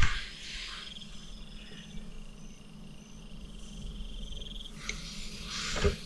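A steady, high-pitched insect trill, cricket-like, runs through. There are soft clicks at the start and about five seconds in, and a louder short noise just before the end.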